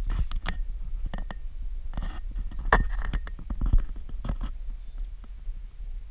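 Wind and handling noise on a GoPro's microphone: a steady low rumble with irregular knocks and short scrapes, busiest in the first four seconds.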